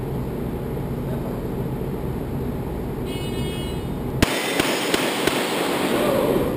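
A shot timer beeps, and about a second later four handgun shots follow in quick succession, roughly a third of a second apart, echoing in the range. The shots are fired at steel plates, about 2.3 seconds from beep to last shot. A steady background hum runs underneath.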